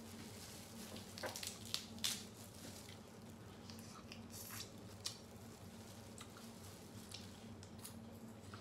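Crab shells cracked and pulled apart by plastic-gloved hands, with a few sharp cracks a second or two in, then slurping and chewing of the crab meat. A faint steady low hum runs underneath.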